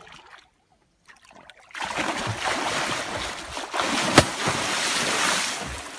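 Loud splashing and churning of water that starts about two seconds in and fades near the end, with one sharp knock partway through.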